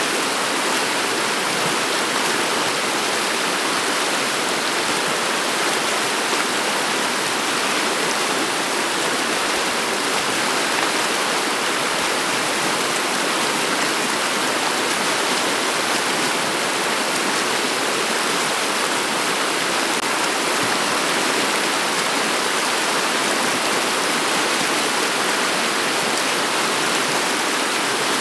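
Shallow river water flowing over a pebble bed: a steady, even rush of moving water.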